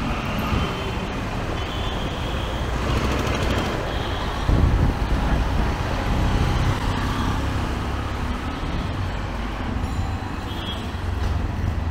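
Road traffic: motor vehicles' engines and tyres running steadily past, with a louder low engine sound of a vehicle passing close about four and a half seconds in.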